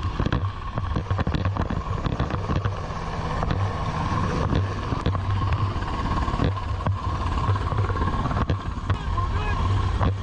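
Helicopter hovering low overhead: a steady low rotor pulse and a whine run under rotor downwash and wind buffeting the microphone, with waves splashing and slapping close by.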